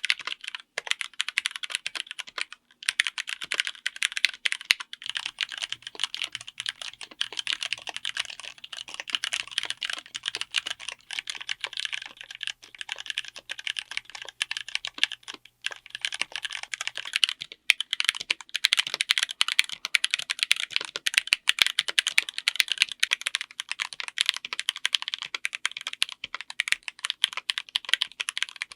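Fast, continuous typing on a mechanical keyboard fitted with linear switches and Cherry-profile keycaps, a dense run of bright keystroke clacks. The typing breaks off briefly about three seconds in and again a little past halfway.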